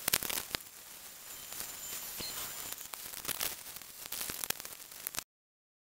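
Seawater boiled down to a wet salt slurry, sizzling and crackling in a stainless saucepan, with many sharp spitting clicks over a steady hiss. It stops suddenly near the end.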